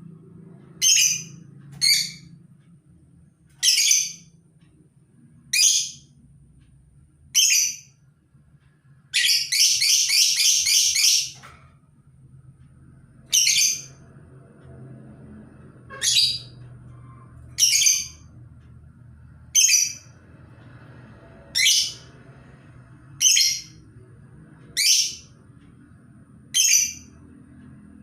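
Labet bird calling: short, sharp high calls repeated about every one and a half to two seconds, with one longer chattering run of about two seconds roughly a third of the way in. These are the calls played as a lure to attract other labet birds.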